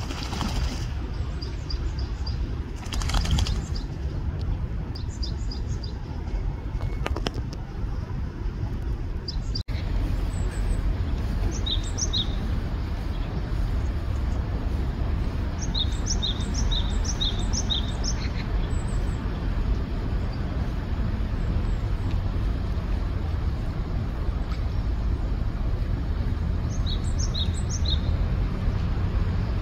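A great tit singing its repeated two-note spring song, high and lower notes alternating, in short bursts from about ten seconds in, over a steady low rumble. In the first few seconds, water splashing as a male Eurasian teal bathes.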